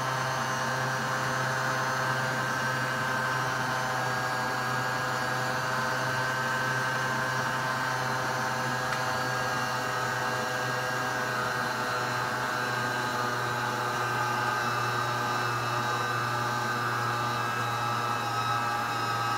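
Silvercrest stand mixer's motor running steadily as it kneads a yeast dough, an even hum with several held tones and no change in speed.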